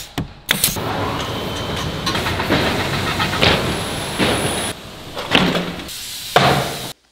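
Woodworking factory sounds in quick succession. First a few sharp shots from a pneumatic nail gun driving fasteners into a plywood panel. Then an edge-banding machine runs steadily as a panel feeds through, followed by a couple of louder knocks as stacked panels are handled, and the sound cuts off abruptly near the end.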